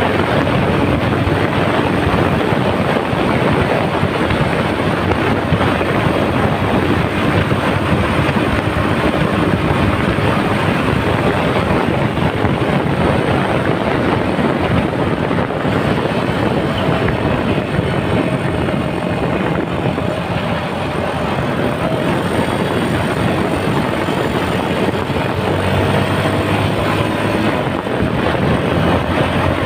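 Heavy wind noise buffeting the microphone of a camera on a moving motorcycle, with the Yamaha Serow 250's single-cylinder engine running faintly underneath.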